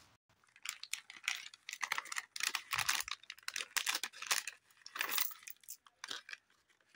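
Plastic wrapper of a Khazana candy packet crinkling and tearing as hands open it, in irregular crackles.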